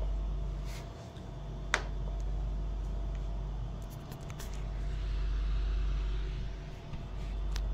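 Low background rumble and hum of the recording setup, swelling and fading every few seconds. A single sharp click comes about two seconds in, with a few faint ticks later.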